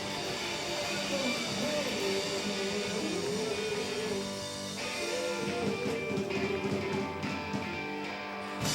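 Hill-country blues band playing, guitar with drums, the music cutting off suddenly near the end.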